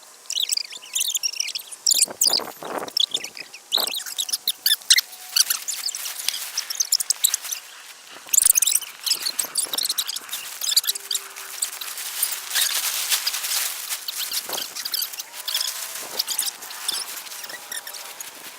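Plastic tarp and ground cover being handled during shelter setup: irregular crinkling and rustling with many sharp crackles, and a few brief squeaky gliding tones near the end.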